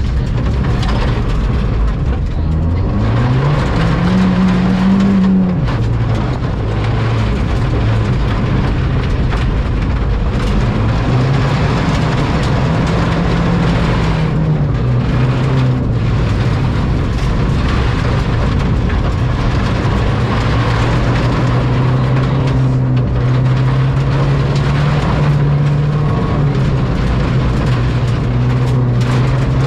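Ford Fiesta ST rally car's turbocharged four-cylinder engine at speed on a gravel stage, heard inside the stripped cabin. The revs climb and drop twice in the first half, then hold fairly steady, over constant gravel and road noise.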